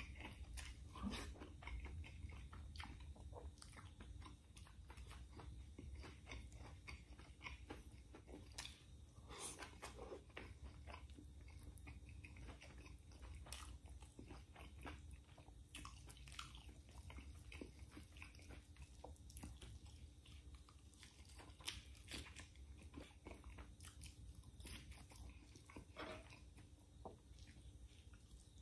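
Faint, close-up eating sounds of a man eating pork adobo and rice by hand: chewing, biting and wet mouth smacks, with many short, irregular clicks throughout.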